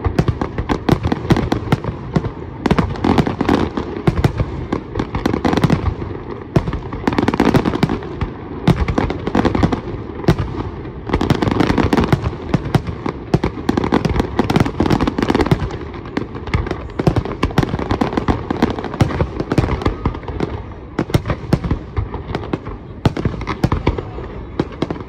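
Fireworks going off in quick succession, loud bangs and crackling overlapping without a break.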